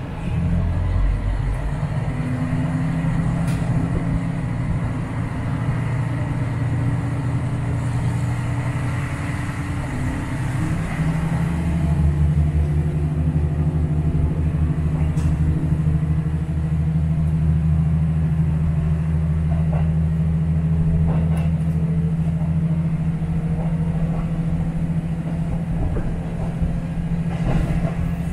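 Diesel railcar running under power, heard from inside the passenger cabin: a steady low engine drone that rises slightly in pitch over the first ten seconds, with a few faint clicks of the wheels over rail joints.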